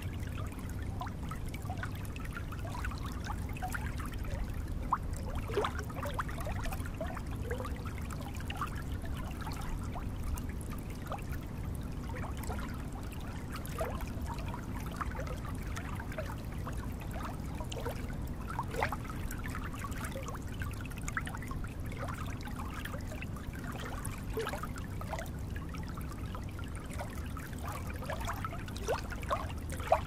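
Shallow water trickling and lapping over stones at the shore: a steady gentle wash dotted with many small plinks and gurgles, over a low rumble.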